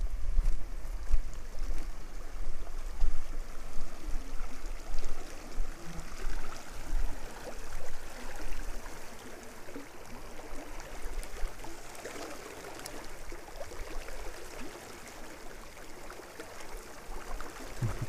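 A small creek rushing and gurgling as it flows into a river. Over roughly the first half, uneven low rumbling bumps sit on top of the water sound.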